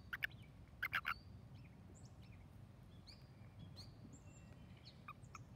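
Toad held in the hand calling: two short chirps within the first second. It is taken for a male calling for females. Faint high bird chirps follow.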